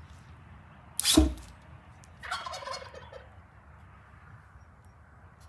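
Homemade combustion potato cannon firing: one loud, sharp bang about a second in. About a second later comes a quieter, shorter sound that falls in pitch.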